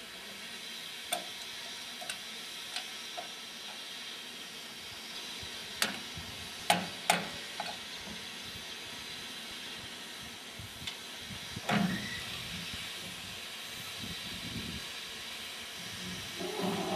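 Steam hissing steadily from a 762 mm gauge C2 class 0-8-0 steam locomotive standing still, with several sharp metallic clanks, the loudest about twelve seconds in.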